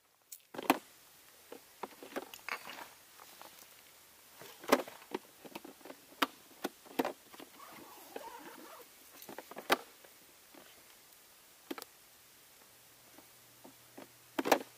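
Dry twigs snapping and being laid as kindling in a metal fire ring: a dozen or so sharp cracks at uneven gaps, with some rustling of the sticks in the middle.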